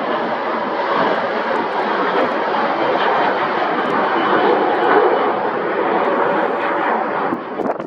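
Jet airliner engines passing close by, a loud even rush that builds slightly and falls off sharply near the end.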